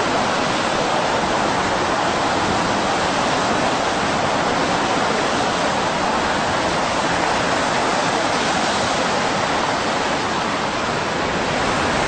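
Turbulent seawater surging and churning, a loud, continuous rushing noise.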